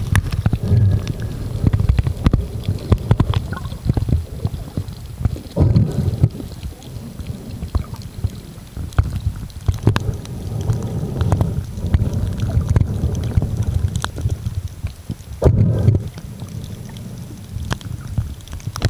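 Muffled underwater sound from a camera held under water: a low, uneven rumble of moving water that swells and fades every few seconds, with scattered small clicks and knocks.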